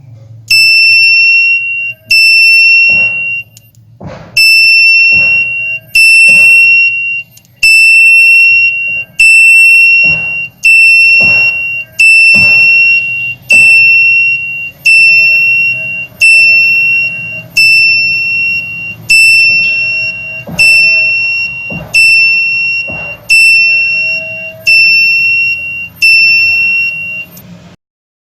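Buzzer in a DIY bicycle-indicator flasher circuit, switched by a 12 V relay that a capacitor timing network cycles on and off, beeping with a high steady tone about once a second. There are sharp clicks at the switching points, and the beeping stops shortly before the end.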